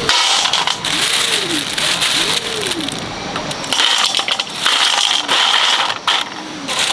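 Dry crunching and crackling, like brittle dry plant material being handled or stepped on, with a dove cooing repeatedly in the background, each coo a short rise and fall in pitch.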